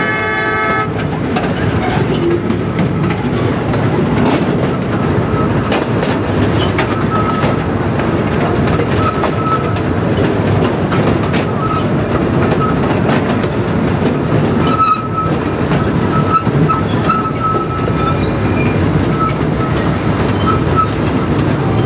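Silver Speed miniature diesel train running along its track: a steady rumble of engine and wheels with scattered clicks from the rails and a thin high squeal that comes and goes. The locomotive's horn is just ending about a second in.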